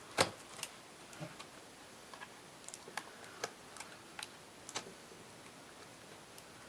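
Irregular small clicks and taps from handling the battery holder and contact springs of a 1958 Emerson Vanguard transistor radio, the sharpest one right at the start.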